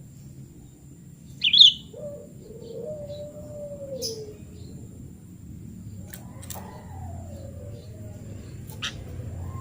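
Sooty-headed bulbul (kutilang) calling: one sharp, loud high chirp about a second and a half in, followed by lower, drawn-out gliding sounds and a few faint clicks.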